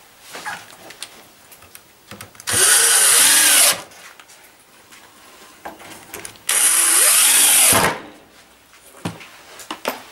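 Cordless drill-driver driving screws through a wooden strip into the door frame: two runs of about a second each, the motor pitch rising and falling as each screw goes in. Small clicks of handling between them.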